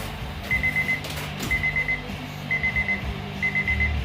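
Weather radio's alarm beeping for a severe thunderstorm warning: quick groups of four high beeps, repeating about once a second.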